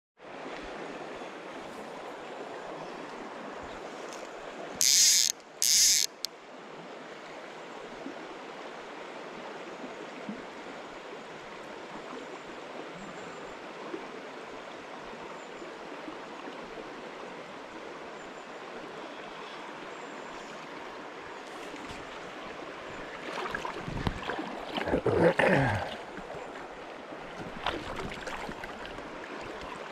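River water flowing steadily. Two short, loud hisses come about five and six seconds in, and a few seconds of louder, irregular noise comes near the end.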